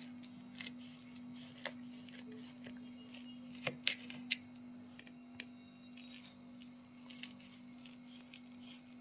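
Kitchen knife scoring a tray of sesame-and-jaggery brittle (til vadi): irregular crunchy clicks and scrapes as the blade cuts through the set sesame seeds and catches the steel tray, densest about halfway through, over a steady low hum.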